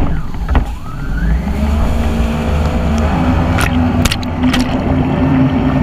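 Jet ski engine running at speed, mixed with wind and rushing spray on the handlebar-mounted camera; the engine note rises about a second in, and a few sharp ticks of spray strike the camera near the end.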